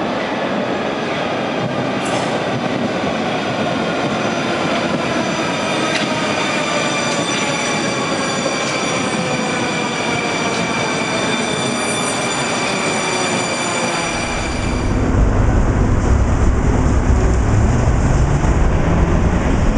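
Moscow Metro train slowing into a station, its traction motors whining in several tones that glide steadily down in pitch. About fifteen seconds in this gives way to the louder, deep rumble of a tram running on street tracks.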